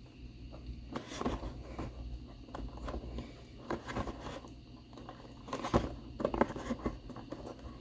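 Cardboard box being worked open by hand: irregular scrapes, taps and rustles of cardboard and packaging, the loudest cluster a little past halfway.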